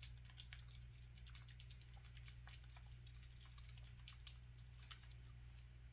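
Near silence: a steady low hum with many faint, light clicks and ticks scattered throughout.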